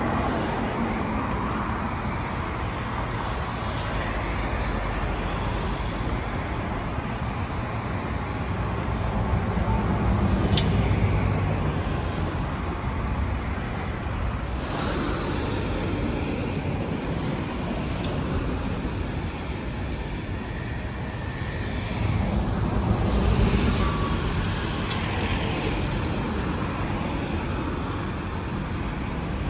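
Road traffic noise: motor vehicles passing on a street, swelling as vehicles go by about ten seconds in and again about twenty-three seconds in.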